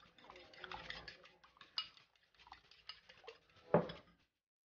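Faint clinks of a kitchen utensil against a bowl while eggs are being prepared, a scatter of light irregular taps with one louder knock near the end.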